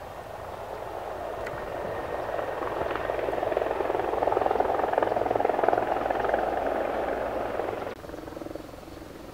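Boeing 737-900's CFM56-7B jet engines running, a rushing engine noise with a rapid buzz that grows louder over several seconds, then drops suddenly near the end.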